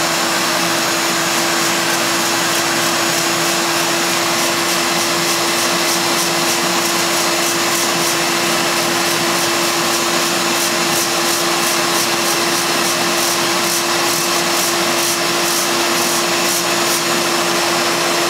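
Shop-Vac wet/dry vacuum running at full speed with one steady whine over a rush of air, its nozzle held to a dusty refrigeration condenser coil. A rapid patter of clicks runs through the second half.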